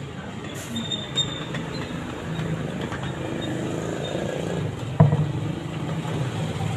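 Road traffic passing close by, a steady low rumble that swells through the middle, with one sharp knock about five seconds in.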